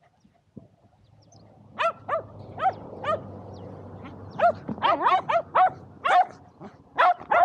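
Shetland sheepdogs barking in short, high yaps, a few spaced ones starting about two seconds in, then coming rapidly one after another over the second half: excited barking while waiting for the frisbee throw.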